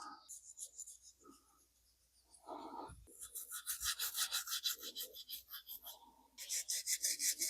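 Brass-bristle brush scrubbing the metal mechanism of an antique typewriter in quick back-and-forth strokes, several a second, in two spells with a short pause just past the middle.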